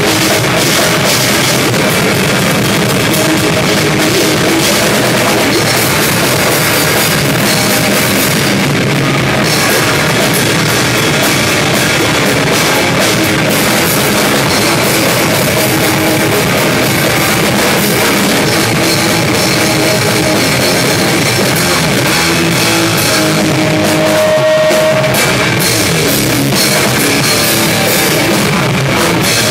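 Loud live rock band: electric guitar, drum kit with crashing cymbals, and a shouted vocal into a microphone, with a short break near the end where a single held note rings.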